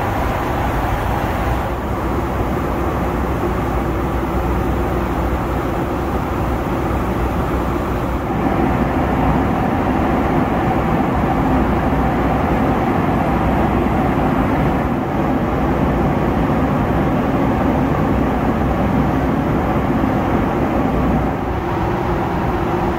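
Steady roar of a Boeing 757's cabin at cruise altitude: engine and airflow noise, with a few faint steady tones. It steps up slightly about a third of the way in.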